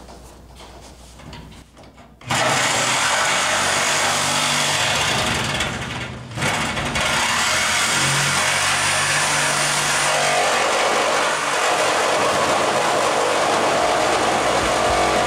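Handheld power cutting tool starting up about two seconds in and cutting through the steel floor of an old Ford F100 pickup bed, a loud steady grinding noise. It drops out briefly about six seconds in, then picks up again and runs on steadily.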